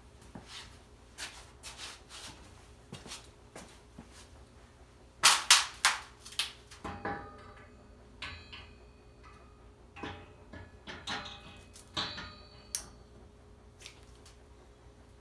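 Metal knocks and clinks as a Jaguar 5.3 L V-12 crankshaft is handled and set down into the engine block's main bearings. There is a quick run of loud knocks about five seconds in, then scattered lighter clinks, a few of them ringing briefly.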